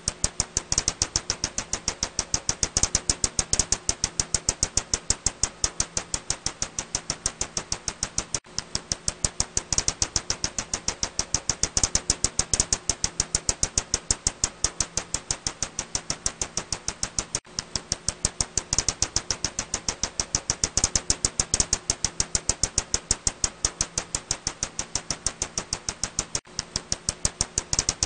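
Ussuri bat echolocation calls made audible: a fast, even train of sharp clicks, several a second, with a brief break about every nine seconds.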